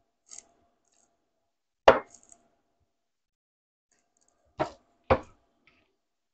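Kitchen knife chopping through zucchini onto a cutting board: three separate chops, one about two seconds in and two close together near the end.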